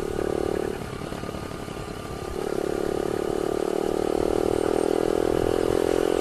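Yamaha YBR 125's single-cylinder four-stroke engine running at a steady cruise while riding. Its note drops away just under a second in and picks up again a little past two seconds, over steady road and wind noise.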